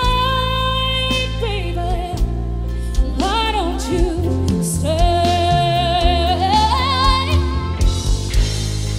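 A woman singing long, held notes with vibrato over a live band's bass guitar and drums. She holds a long note from about five seconds in, which rises near the end.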